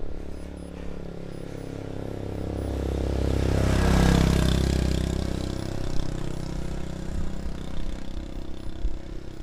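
A motor vehicle passing close by, its engine rising to a peak about four seconds in and then fading, over steady wind and road noise.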